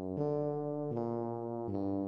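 Tuba playing a slow melody: three held notes in a row, each about three-quarters of a second long and running straight into the next.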